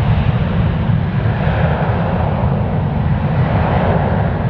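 Airbus A380's four jet engines running at taxi power as the airliner rolls slowly, a loud, steady noise that is heaviest in the deep low end.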